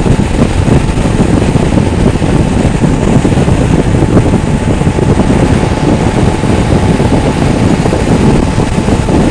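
Steady, loud rush of wind over the microphone, mixed with road and engine noise, from a motorcycle cruising at highway speed.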